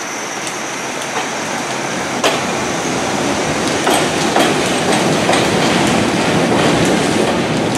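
R68A subway train pulling out of an elevated station: a steady rail rumble that grows louder as it gets under way, with sharp clacks of the wheels over rail joints.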